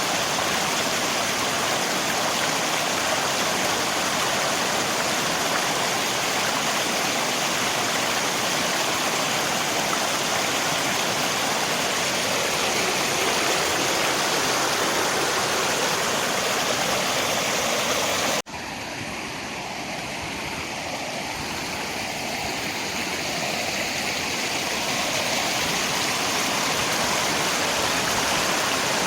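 Steady rushing of river water mixed with rain. About two-thirds of the way through it cuts out for an instant, comes back noticeably quieter, then swells back up over several seconds.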